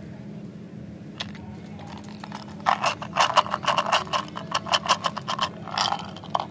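Small round gumballs rattling and clicking out of a plastic Lotte Fusen no Mi dispenser into a palm: a quick, uneven run of sharp clicks lasting about three seconds, after a single click about a second in.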